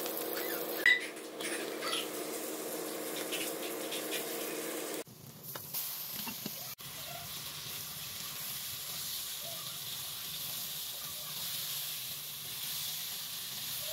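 Sliced onions frying in hot oil in a metal pot, sizzling, with a spatula clacking and scraping against the pot over a steady hum. About five seconds in the hum cuts off and chicken pieces sizzle and hiss in the pot.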